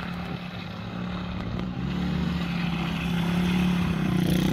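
Pit bike engine running at steady high revs as the bike leans through a corner, its pitch creeping up slightly and growing louder as it comes close.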